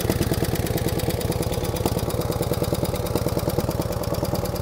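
1949 Harley-Davidson FL Panhead V-twin idling steadily after a cold start, with even, rapid exhaust pulses. A light tapping from the top end runs through it, which the owner puts down to solid lifters.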